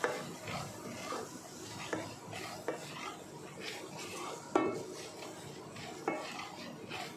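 Wooden spatula stirring and scraping gram flour through fried onion and garlic in oil in a stainless steel pan, with a light sizzle under it, as the besan roasts on low heat. The spatula knocks against the pan several times, most sharply about four and a half seconds in.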